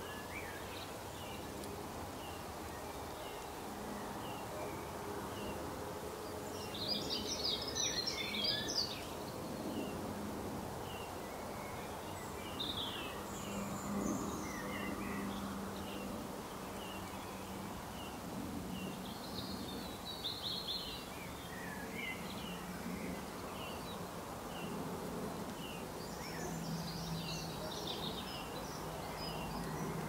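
Birds chirping over a steady low background hum, with louder bursts of high twittering song about a quarter of the way in, around the middle, and near the end.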